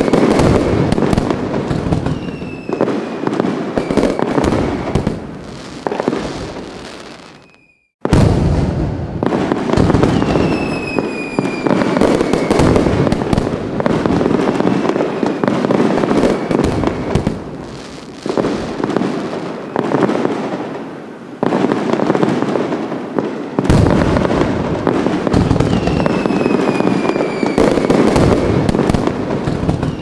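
Fireworks display: a dense, continuous barrage of bangs and crackling, with falling whistles heard several times. The sound fades out about eight seconds in and comes back abruptly.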